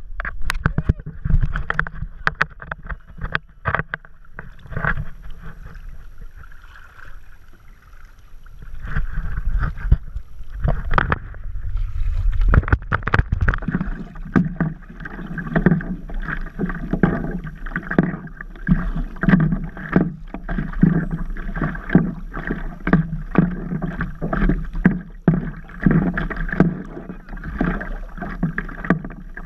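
Water sloshing and slapping against the nose of a stand-up paddleboard, heard close up at water level, in a steady run of irregular splashes. It eases off for a few seconds early on, then grows busier.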